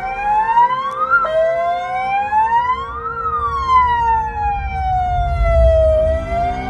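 Ambulance siren wailing in slow up-and-down sweeps. About a second in it drops suddenly back to its low pitch, then climbs and falls again. Low vehicle rumble underneath.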